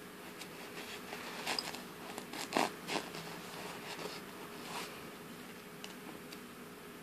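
Handling noise from fingers rubbing and scraping on a crochet-covered glass bottle as it is turned in the hand: a short cluster of rough scrapes in the middle, loudest about two and a half seconds in, another near five seconds and a few faint ticks later, over a faint steady hum.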